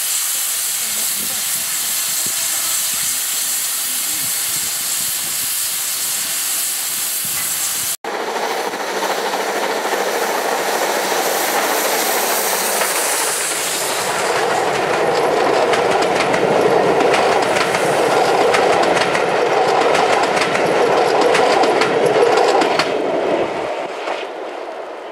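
GWR 1500 class pannier tank No. 1501 standing with a steady hiss of escaping steam. About eight seconds in this gives way abruptly to the same locomotive running past under steam, the noise swelling to its loudest in the second half and falling away near the end.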